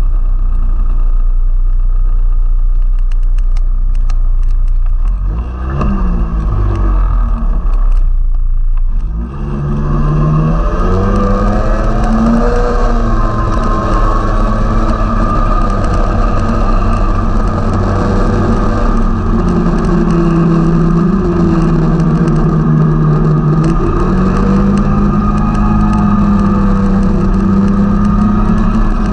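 Snowmobile engine running under way, heard from on the machine. For the first nine seconds it runs lighter with two brief let-offs, then it picks up and holds a strong, steady note that rises and falls a little with the throttle.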